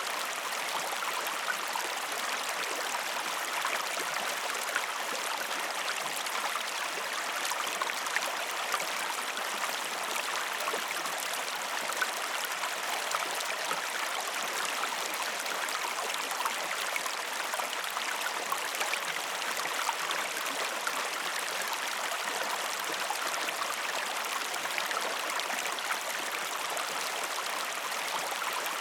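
River water flowing steadily over rocks, a continuous rushing with fine splashing and gurgling.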